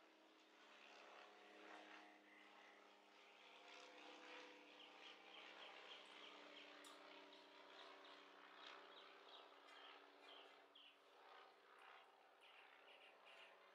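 Near silence: a faint steady hum with scattered faint bird chirps.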